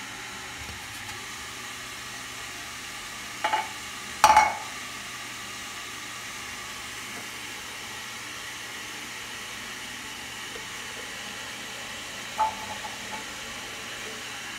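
Round metal cake tins knocking against the aluminium tray of a steamer pot as they are set in: two clanks about four seconds in, the second the loudest with a short ring, and a lighter clank near the end, over a steady hiss.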